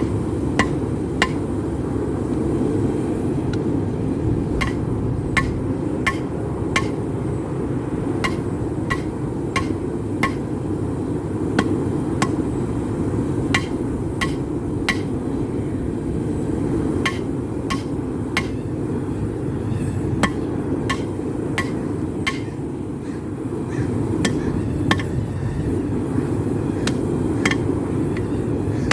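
Hand hammer striking hot rebar on an anvil, with sharp ringing blows at an uneven pace, often one or two a second with short pauses. A steady rushing noise runs underneath.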